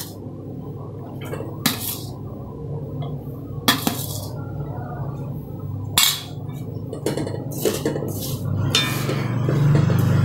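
Cooked rice being tipped from a metal bowl into a metal kadai, with several sharp clinks of metal and spoon against the pan over a steady low hum. About nine seconds in, a wooden spatula starts stirring and scraping the rice around the kadai, and the sound grows denser and louder.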